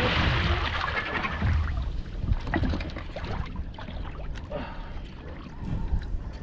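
Water splashing at the side of a small fishing boat as a big oilfish is brought in, the spray hiss fading over the first second or two into scattered drips and small knocks over a low rumble.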